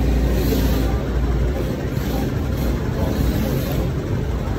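Steady road-traffic noise with a deep rumble of passing vehicles, the deepest rumble easing off about a second and a half in.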